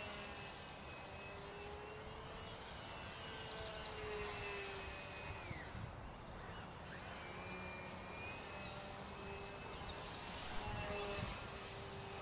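The brushless electric motor and 6x4 propeller of a small radio-controlled model plane whining in the air at a distance, the pitch wandering slightly as it flies about. There are a couple of brief thumps around the middle.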